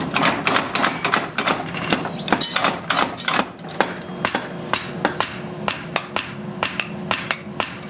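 Hammer blows on red-hot steel at the anvil while forging a Japanese kitchen knife blade, coming quickly at about four strikes a second, with a steady low hum underneath.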